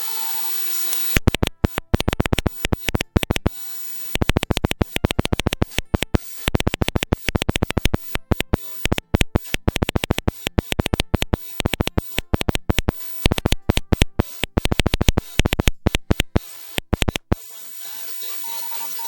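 Pixie2 QRP transceiver being keyed in Morse code: each key-down comes through as a sharp burst of harsh noise, in rapid irregular groups for about sixteen seconds. Receiver hiss with a steady beep tone is heard before the keying and again near the end.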